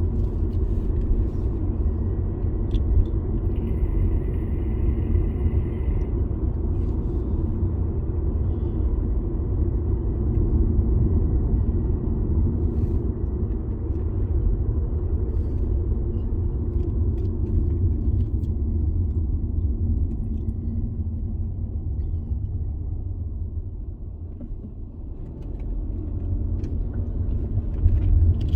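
Car driving on the road: a continuous low rumble of engine and tyre noise. It eases off briefly about four-fifths of the way in, then swells again.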